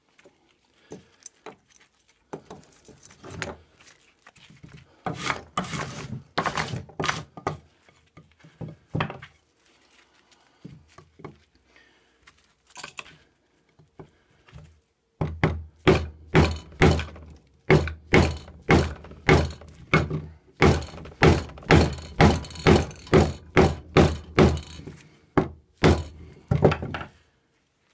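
A neck knife being batoned through wood with a wooden stick: scattered knocks at first, then about halfway a steady run of hard knocks, roughly two a second, that stops shortly before the end.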